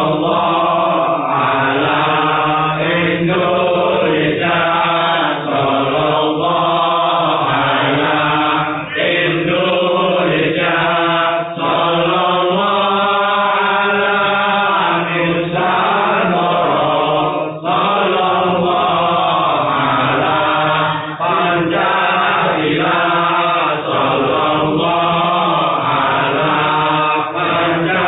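A group of voices chanting a shalawat-style devotional refrain in unison, in long continuous phrases with short breaks for breath.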